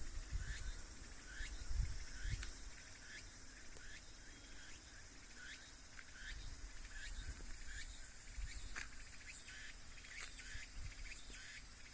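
Insects calling in a chorus: a steady high drone with regular high pulsing chirps, and short rising chirps repeating about every half second. There are low rumbles in the first couple of seconds.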